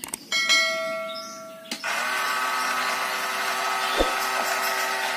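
Small electric motor running with a steady whine, which starts about two seconds in after a shorter steady buzzing tone, with a single click near the end.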